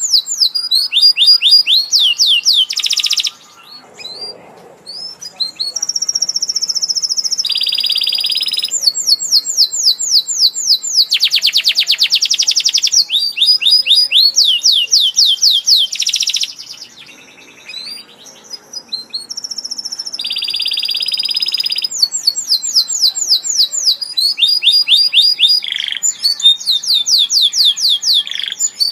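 Domestic canary singing a long, loud song of rapid trills and rolling repeated notes, broken by two short pauses.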